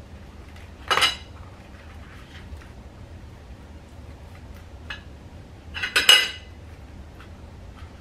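A metal utensil clanking and scraping against a skillet of ground meat: two loud clatters, about a second in and again about six seconds in, with a few light taps between.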